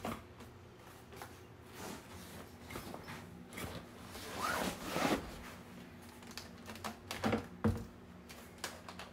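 Black speaker column sections sliding into a fabric carry bag: rustling and scraping of the fabric, louder about four to five seconds in, with a couple of knocks near the end.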